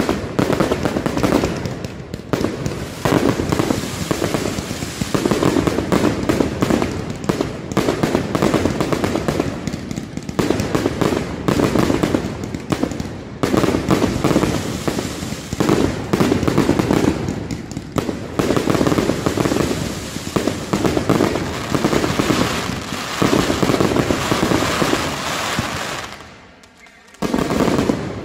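Night mascletà fireworks: a dense, unbroken barrage of firecracker bangs and crackling aerial bursts, surging in waves every second or two. Near the end it falls away almost to a pause, then a loud burst starts it again.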